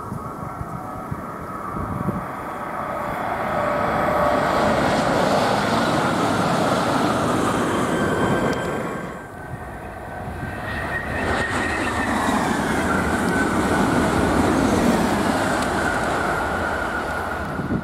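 High-speed electric trains running past at speed: a steady rush and rumble of wheels on rail that swells, dips about nine seconds in, then builds again as another train approaches, with a high whine that slides down a little in pitch.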